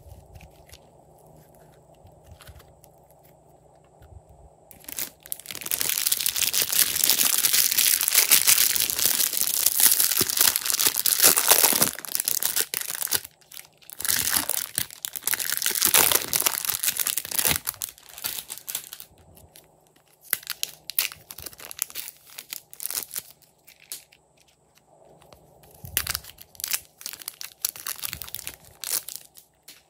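Thin plastic wrapping crinkling and rustling as soft clay is handled inside it and peeled out of it. It starts a few seconds in, runs in two long spells, then breaks into short bursts near the end.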